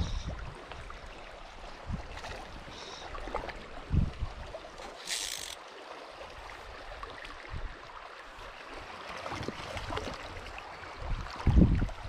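Shallow, fast river water running over a riffle: a steady rush of flowing water, with a few low thumps and a brief hiss about five seconds in.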